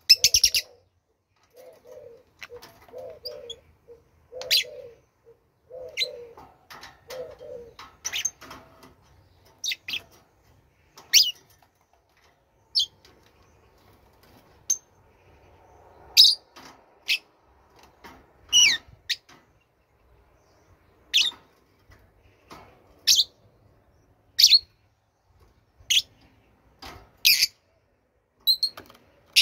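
Birds chirping: short, high chirps every second or two, with a run of lower, repeated notes during the first eight seconds.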